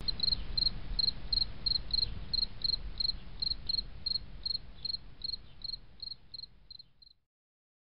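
Cricket chirping, short evenly spaced chirps about three a second, over a low rumble. The sound fades gradually and stops about seven seconds in.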